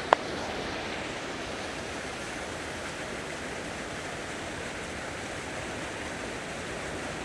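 Steady rush of water from ocean surf and a small coastal waterfall, with one short sharp tick right at the start.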